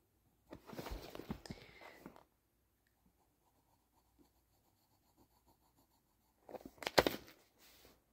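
Pencil scratching on paper while colouring in a drawing: one spell of scratching near the start, a pause, then a second spell with a sharp tap about seven seconds in.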